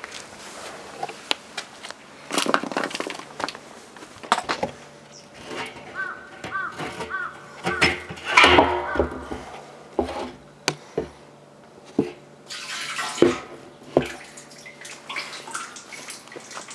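Drained oil splashing and dripping into a steel waste-oil drum, mixed with scattered sharp knocks and clatter of metal being handled.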